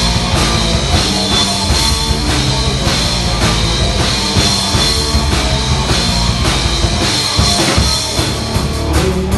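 Live rock trio playing an instrumental passage: drum kit keeping a steady beat under bass guitar and guitar.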